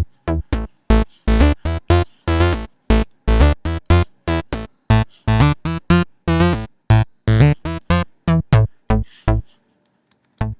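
Xfer Serum software-synth bass patch playing a quick run of short, plucked, dirty-sounding bass notes with deep lows and a bright, gritty top, pausing briefly near the end.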